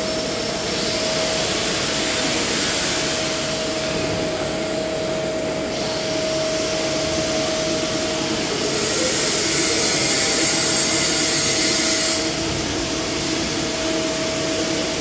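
TIG welding on 2-inch stainless-steel pipe: a steady hiss of the arc and gas with a constant whine. The hiss turns brighter for a few seconds about nine seconds in.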